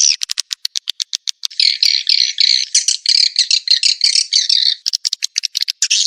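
Swiftlet-house lure call: a recording of swiftlet twittering played to draw swiftlets into a nesting building. High-pitched rapid dry clicks, then a run of buzzy chirps about four a second in the middle, then rapid clicks again about five seconds in.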